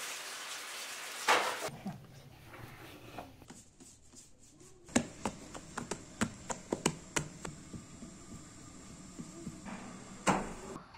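Hands working bread dough: a soft rustle of kneading, then a quick run of sharp pats and slaps as a round of dough is flattened between the palms, and one louder knock near the end.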